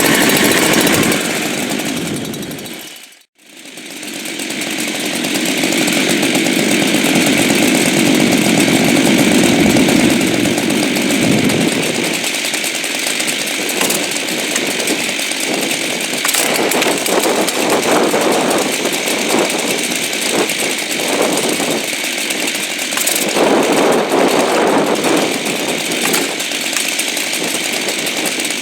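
Two-stroke gas chainsaw running at high revs, loud and continuous. The sound cuts out abruptly about three seconds in, then comes back.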